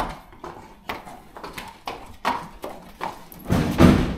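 A horse's hooves clopping on a concrete stable floor as it is led at a walk, in irregular knocks about every half second. A louder, longer burst of noise comes about three and a half seconds in, as the horse steps into its box.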